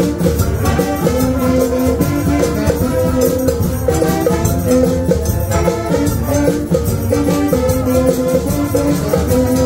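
Street brass band with saxophones and brass horns playing a lively tune, with percussion keeping a steady beat.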